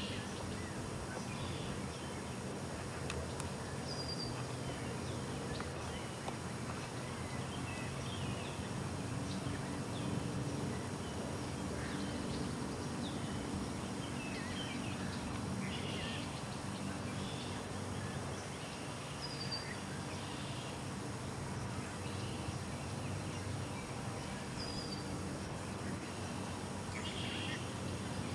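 Faint, scattered high peeping of mallard ducklings over a steady outdoor background hiss and low rumble, with a few short high chirps now and then.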